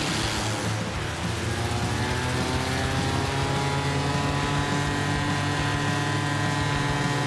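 Wood chipper's engine running, rising in pitch over a couple of seconds and then holding a steady higher speed.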